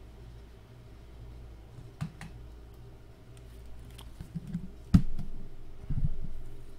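A few sharp clicks of a computer mouse, then a loud knock about five seconds in and a duller thump about a second later, over a low steady hum.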